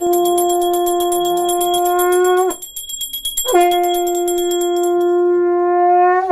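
Conch shell (shankha) blown in two long blasts of about two and a half seconds each, a second apart. Each holds one steady note that rises slightly just before it stops. A high, fast-pulsing ringing runs underneath through both blasts and the pause.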